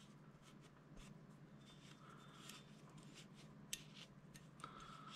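Near silence with faint rubbing and a few light clicks as an oiled cotton patch is wiped along the inside of a Springfield XD(M) pistol slide, the sharpest click about three and a half seconds in.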